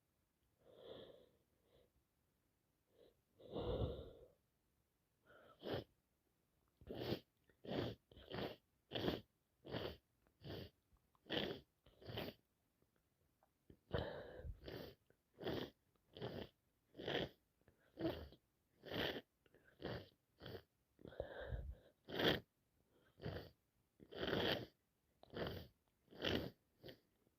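A woman with a heavy cold sniffing over and over in short, quick sniffs, about two a second, with one pause partway through. A couple of slower, deeper breaths come first.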